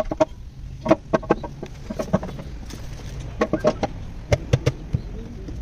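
A chicken clucking in short, sharp, irregular runs.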